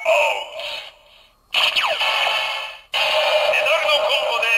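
Kamen Rider OOO Ridewatch toy playing its electronic sound effects through its small speaker, thin and tinny with no low end. There is a short effect, a brief pause, a sweeping effect, then from about three seconds in a voice or sung announcement.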